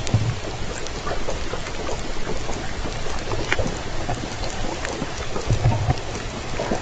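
Underwater sound picked up by a hydrophone as J Pod southern resident killer whales pass: a steady hiss with scattered sharp clicks and a couple of low thumps, one near the start and one about two-thirds of the way through.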